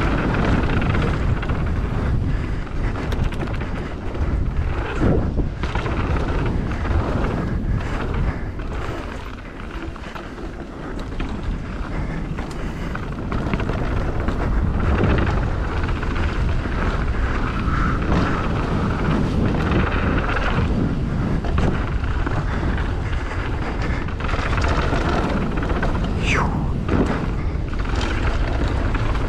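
Wind rushing over the microphone of a rider moving fast downhill, with the continuous hiss of sliding over snow. It eases off briefly about ten seconds in.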